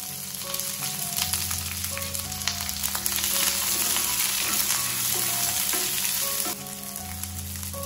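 Sliced onions sizzling in hot sesame oil in a frying pan as they are tipped in and stirred with a wooden spatula. The sizzle swells over the first few seconds and drops off abruptly about six and a half seconds in.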